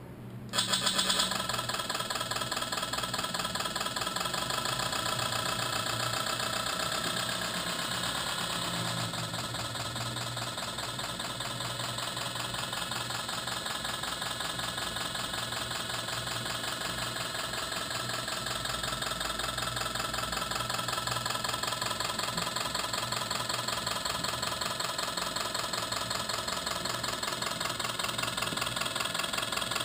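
Simulated diesel engine sound from a radio-controlled model's sound module. It comes on abruptly about half a second in, then runs steadily at a knocking idle.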